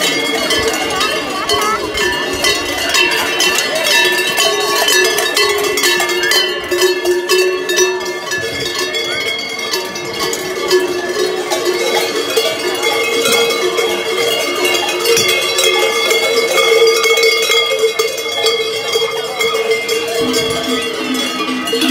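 Many cowbells clanging together without pause, swinging bells worn by carnival maskers as they walk. Crowd chatter sits underneath.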